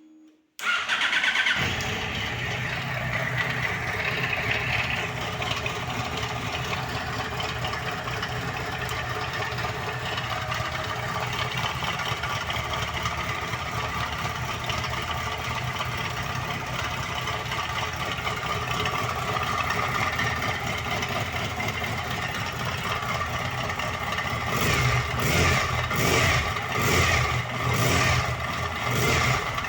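Yamaha FZ1's inline-four engine starting, then idling steadily; from about 24 seconds in it is blipped repeatedly, about once a second. It carries a suspect noise that the owner takes for worn crankshaft bearings.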